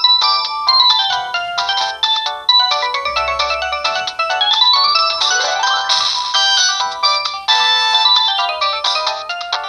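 A Samsung GT-E1205T ringtone playing on a Samsung GT-E2250 phone's loudspeaker: a fast synthesized melody of quick notes, with rising runs of notes about halfway through.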